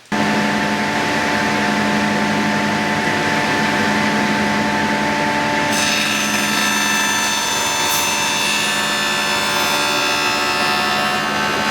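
Power saw running, loud and steady, starting abruptly; about six seconds in a higher whine joins in.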